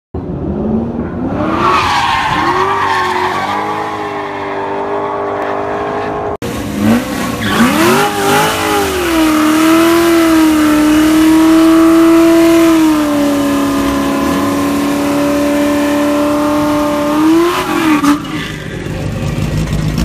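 Chevrolet Corvette V8 driven hard with tires squealing. First its pitch rises and falls in a drift. After a sudden cut about six seconds in comes a burnout, the engine held high and the spinning tires giving one long steady tone for about ten seconds that dips slightly midway and swells again near the end.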